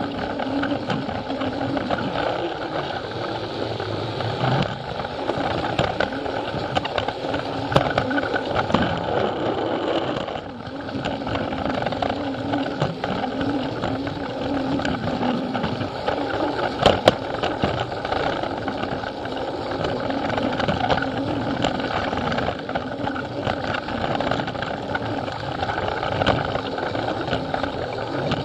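Plarail toy train's small battery-powered motor and gearbox whirring steadily as it runs along plastic track, heard close up from a camera riding on the train, with a few sharp clicks as it crosses track joints.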